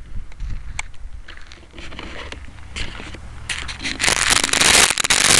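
The onboard camera of an RC Cessna model picks up a crackling, scraping rumble with scattered clicks as the model moves along the ground. It turns into a loud, harsh noise about four seconds in.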